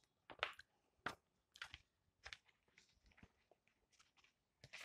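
Faint, short crackles of paper pages being handled and turned in a paperback book, a few scattered rustles spread across the seconds.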